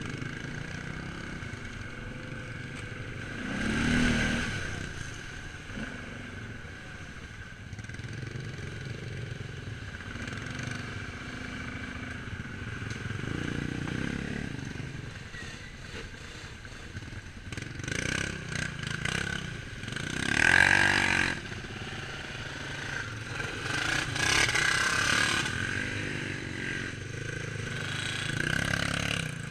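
Quad bike (ATV) engines running over a rough muddy track, revving up louder several times.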